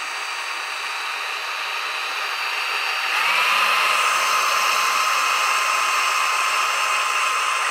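Cordless drill running, slowly boring a small hole into a model part held in a vise. The motor whine is steady, then rises in pitch and gets a little louder about three seconds in, and holds there.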